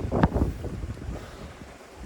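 Water sloshing and splashing around a person in an icy creek, with wind buffeting the microphone; a sharp splash about a quarter second in, then dying down.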